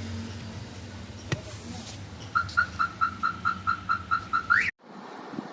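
Mahindra Scorpio's electronic chime: a quick run of short, even beeps at about six a second, ending in a brief rising tone and then cut off suddenly.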